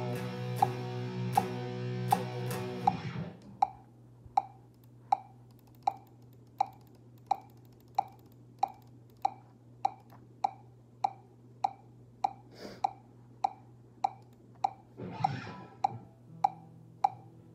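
Electric guitar chords ringing over a steady metronome-like click for about the first three seconds. Then the guitar stops, leaving the click ticking about once every 0.7 s over a low amplifier hum, with a short scrape of guitar noise near the end.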